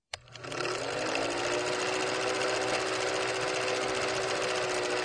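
Stock film-countdown-leader sound effect: an old film projector running with a steady fast mechanical clatter and a hum that rises in pitch as it comes up to speed, with a brief sharp high blip near the end.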